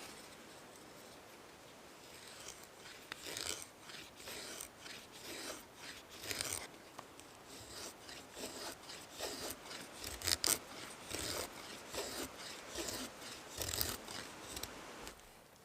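A knife blade scraping in quick, irregular strokes, a run of rasping scrapes that starts a couple of seconds in and stops shortly before the end.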